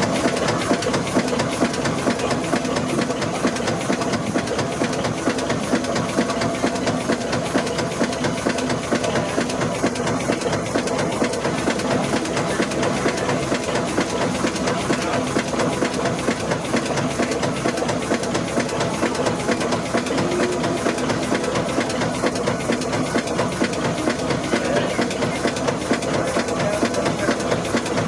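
Steam engine running steadily, with a fast, even beat.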